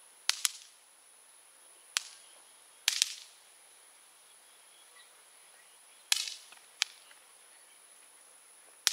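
Small novelty fireworks going off in sharp little pops: about eight snaps, some in quick pairs, spread unevenly over several seconds.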